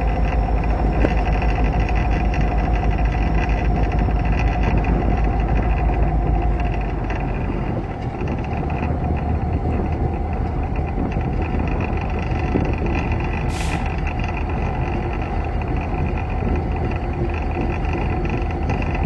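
Alaska Railroad diesel locomotive running along the line: a steady engine drone and rumble of the wheels on the rails, easing slightly partway through. There is a short hiss of air about two-thirds of the way through.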